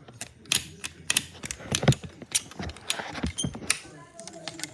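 Irregular sharp clicking and tapping, several clicks a second, some louder than others.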